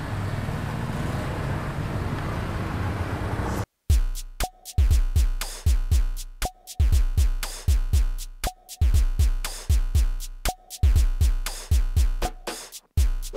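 A motor scooter's engine pulling away under outdoor background noise, cut off abruptly about three and a half seconds in; then electronic music with a drum-machine beat.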